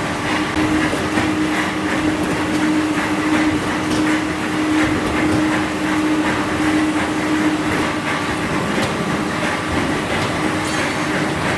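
PP/PE plastic film recycling washing line running: steady, loud mechanical noise with a constant hum that fades about eight seconds in, and scattered light clicks and knocks.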